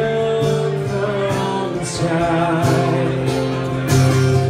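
Two acoustic guitars strumming a slow song live, with singing between the sung lines.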